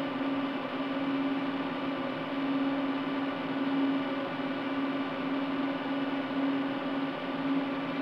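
Cisco Catalyst 5509 switch chassis running after start-up: a steady fan whirr with a constant low hum tone that does not change.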